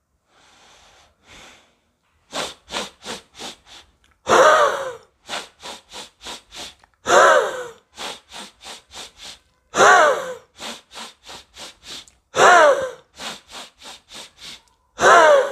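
A man breathing in a set rhythm: about five quick sniffs in through the nose, then one forceful blow out through the lips, which carries a falling tone. The cycle repeats five times.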